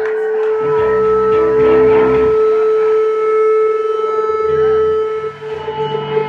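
Live psychedelic rock jam: a steady, loud, high electronic drone note held throughout, with deep low notes coming in about a second in and again near the end.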